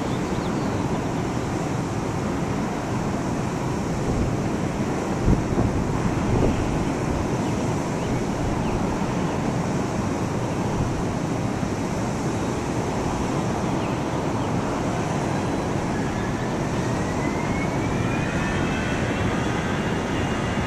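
Distant jet engines of an Airbus A321-211 (CFM56-5B turbofans) running at low power as the airliner taxis onto the runway, heard as a steady rush. Near the end a whine rises in pitch as the engines begin to spool up for the takeoff run.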